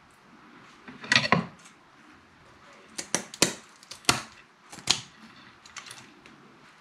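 Kitchen scissors snipping through the tough dorsal fin spines of a sea bass. There are a few crunchy cuts about a second in, then five crisp snips between about three and five seconds in.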